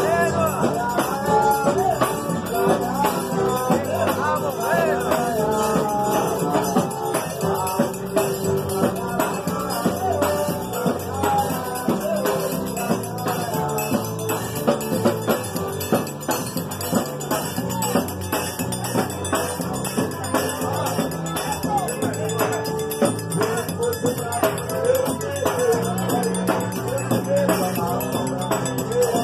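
A live band playing a piano accordion, guitars, and a drum and cymbal, with a steady beat and a voice singing along.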